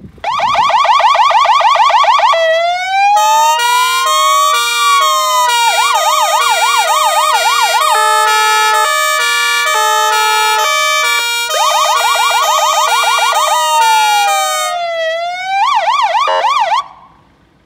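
Electronic emergency siren of a Ford Transit light rescue fire engine, loud, cycling through its tones: a fast yelp, then a slow rising and falling wail, then a long run of stepped alternating high-low tones broken by further fast yelps and wails. It cuts off shortly before the end.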